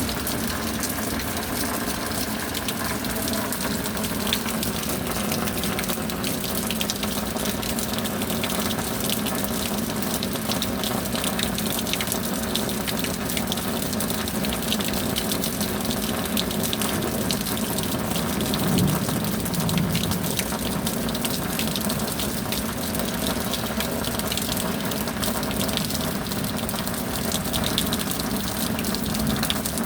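Steady heavy rain, a dense even hiss of many drops, with a brief louder low swell about two-thirds through.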